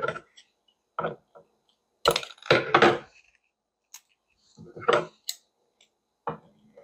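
Thin wooden skewers pushed through a cabbage wedge being bent and snipped off with kitchen scissors: a series of short, sharp cracks and snips at irregular intervals.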